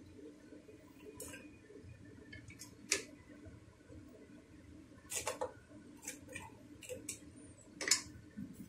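Scattered light clicks and clacks of hard crab shells and chopsticks against a plastic tray and metal pot as steamed blue crabs are handled, the sharpest knock about three seconds in and a quick cluster around five seconds; a low steady hum underneath.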